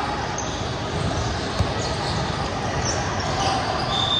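Indoor basketball game: a ball bouncing on a hardwood court over steady crowd chatter echoing in a gym, with one sharp thud about one and a half seconds in and a few brief sneaker squeaks.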